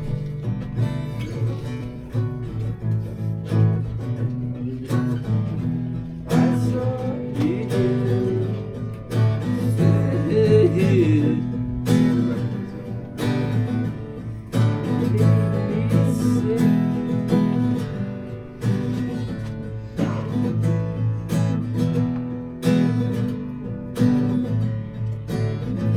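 Acoustic guitar strummed in a steady rhythm, playing the instrumental opening of a song.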